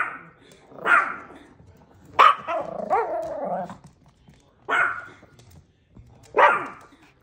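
Chihuahuas barking in short, sharp barks with a longer run of barking about two seconds in.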